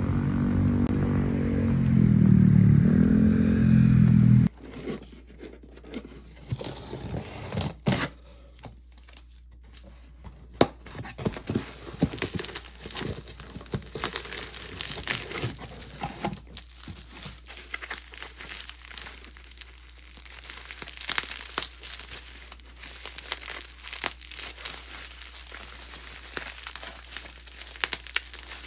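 A loud pitched sound that bends in pitch, cut off abruptly about four seconds in. Then irregular crinkling and rustling of something being handled, with many short clicks and taps.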